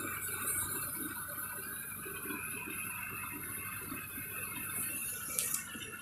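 Rice combine harvester running steadily, a continuous mechanical noise with a faint high whine, and a brief click near the end.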